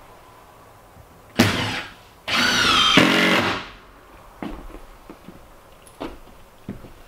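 Power drill run in two bursts, the second about a second long with its pitch wavering under load, typical of driving screws into OSB subfloor, followed by a few light knocks.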